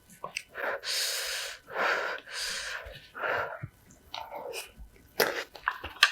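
A person's breath expelled in about four loud, airy puffs close to the microphone, then a few sharp mouth or utensil clicks of eating near the end.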